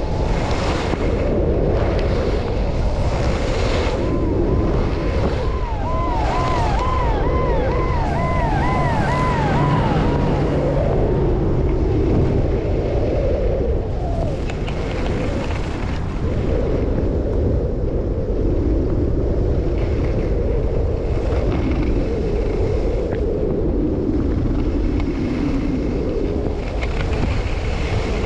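Wind buffeting the microphone in a steady loud rumble, with the hiss of skis running over snow. For several seconds early on there is a run of quick, repeated high chirps.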